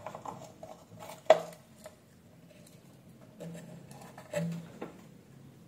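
Small clicks and taps of a screwdriver and fingers on a weighing scale's plastic housing and circuit board as the board's screws are undone, with one sharper click about a second in.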